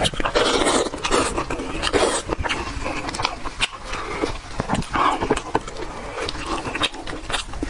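Close-miked wet eating sounds: slurping, sucking and smacking while chewing soft sheep's brain, with many quick clicks and short bursts of breath.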